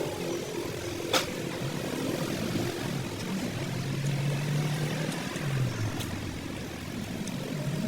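Low steady motor hum with a wavering low tone, and a single sharp click about a second in.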